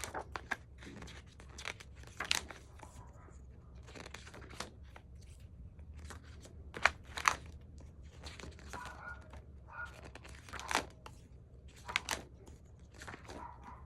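Stiff glossy pages of a photobook being turned one after another: crisp flaps and rustles at irregular intervals, a pair of sharper snaps about seven seconds in.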